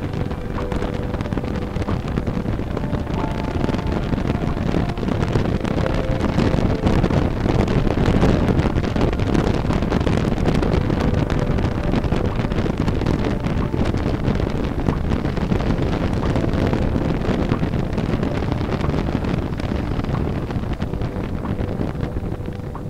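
Wind rushing over the microphone of a motorcycle-mounted camera at road speed, with the motorcycle's engine running underneath. The rush swells a little a few seconds in, then holds steady.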